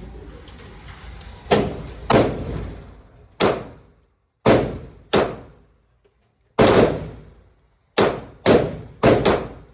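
Smith & Wesson M&P 2.0 pistol firing a string of about ten shots at uneven intervals, each crack followed by an echoing tail.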